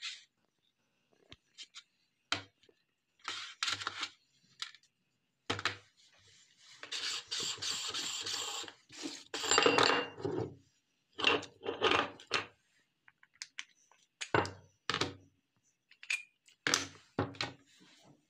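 Metal meat grinder parts handled and taken apart: scattered short clinks and knocks, with a longer grating scrape in the middle as the ring nut is worked off, and the plate, blade and auger set down on a plastic tray.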